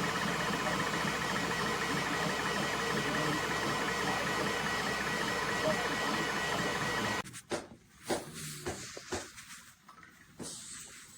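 Creality K1 3D printer running, its fans making a steady noise with a fast, even repeating chirp from the moving print head several times a second. The sound cuts off abruptly about seven seconds in, leaving only faint scattered clicks and knocks.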